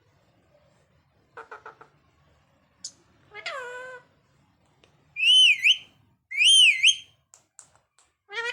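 A parrot whistling: a quick run of clicks, a short high chirp, a falling whistle, then two loud whistles that dip and rise in pitch, followed by a few faint clicks.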